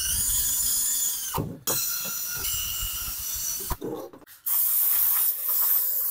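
Cordless drill spinning a wire-brush wheel against an engine cylinder head, scrubbing off old gasket residue: a motor whine over a scratchy brushing noise, with a short pause, stopping just under four seconds in. Near the end an aerosol spray can hisses for about a second and a half.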